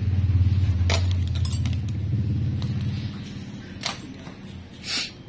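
A low rumble, loudest in the first two seconds and then fading, with a few sharp metallic clinks about one, one and a half and four seconds in, and a short hiss near the end.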